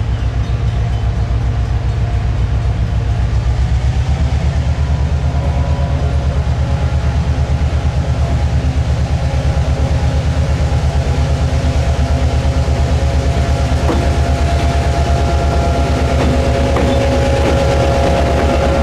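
EMD GP7u diesel-electric locomotive working a train, its engine exhaust a heavy, rapid, steady throb. Faint steady higher tones join in during the last few seconds.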